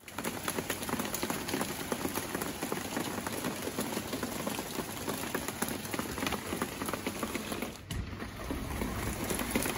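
Heavy typhoon rain pouring down, a dense patter of drops striking surfaces. It dips briefly about eight seconds in, then carries on with a low rumble underneath.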